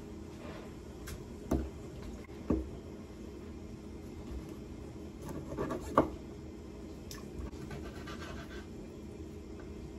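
A knife cutting raw beef on a cutting board, with a few sharp knocks of the blade or meat against the board, the loudest about six seconds in. A steady low hum runs underneath.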